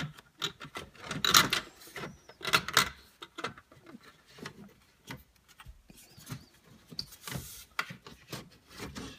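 The plastic instrument-cluster bezel of a 2003-2004 Mustang SVT Cobra being worked loose and pulled from the dash by hand. Irregular clicks and plastic rubbing and scraping, with a few longer scrapes about one and a half, two and a half and seven seconds in.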